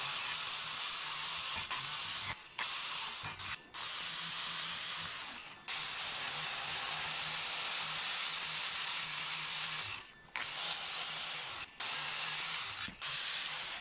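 Angle grinder grinding a corner joint of a steel square-tube frame, a steady hissing grind broken by several brief pauses, the longest about ten seconds in.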